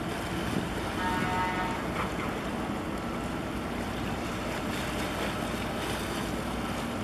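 Wind buffeting the microphone over open water, with a steady low rumble and the wash of waves. About a second in, a brief faint pitched tone sounds.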